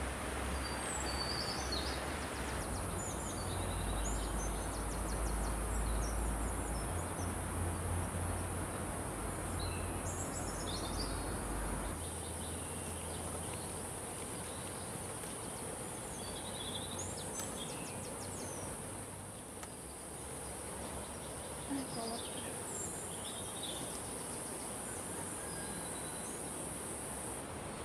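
Rural outdoor ambience: a steady high insect drone with scattered short bird chirps. A low rumble runs underneath and stops about twelve seconds in.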